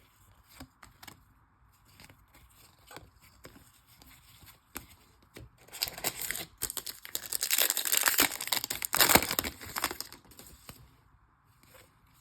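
A few light clicks and taps of card handling, then, about six seconds in, a trading-card pack's foil wrapper being torn open and crinkled for about four seconds.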